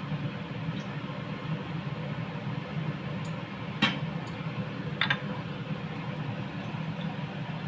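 Steady low rushing of a lit gas stove burner heating a pan of oil, with two light clicks of a utensil about four and five seconds in.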